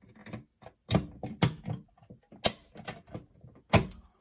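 Irregular mechanical clicks and knocks, the sharpest about one, one and a half, two and a half and nearly four seconds in: the controls and mechanism of a fire alarm system being worked to reset it after a test, the sounder silent.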